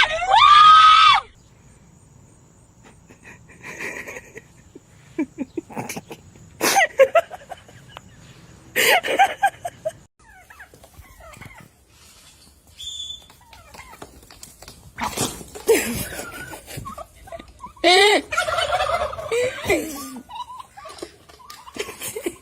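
Animal calls in separate bursts: a loud wavering call lasting about a second at the start, then scattered short calls and noises with quiet between, and a longer run of wavering calls about eighteen seconds in.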